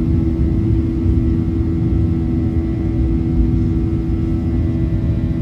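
Boeing 737-800's CFM56-7B fan engines at high thrust heard from inside the cabin: a steady buzzsaw drone of several fixed tones over a low rumble.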